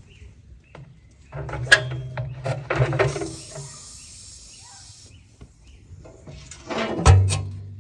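A metal baking tray scraping and clattering as it is pushed onto the rack of a steel wood-fired oven, the sheet steel ringing. About seven seconds in, a loud metal clang with a low ring after it.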